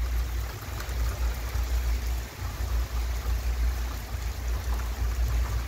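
Heavy rain falling on a wet street, a steady hiss with a low rumble underneath.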